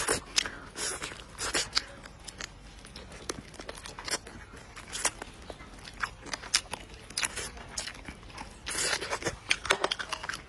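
Close-miked eating of stewed rooster: irregular wet chewing and lip-smacking clicks, with meat and skin being torn and bitten.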